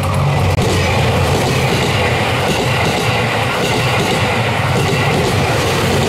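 Series 87 Twilight Express Mizukaze diesel train passing at close range. It is a steady, loud running noise of engine hum and wheels on the rails.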